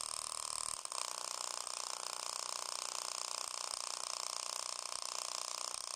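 Small square full-range speaker driver, held bare in the hands, playing a bass test with its cone moving a long way. It gives a steady buzzy sound, mostly in the mids and highs, with little deep bass.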